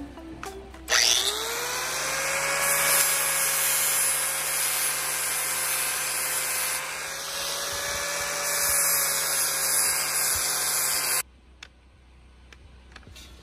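Electric angle grinder with an abrasive disc spinning up about a second in, then grinding the top of a concrete column to level it: a steady high whine over a gritty hiss, sagging slightly under load partway through. It cuts off suddenly about two seconds before the end.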